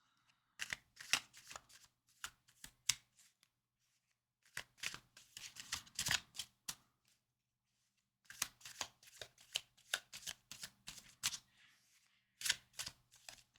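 Tarot cards being shuffled by hand: four spells of quick, light card clicks and slaps, with short pauses between them.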